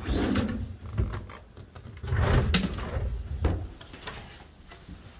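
Kitchen cabinet doors and drawers under a sink being opened and shut, a series of knocks and clatters that is busiest about two to three seconds in and dies down near the end.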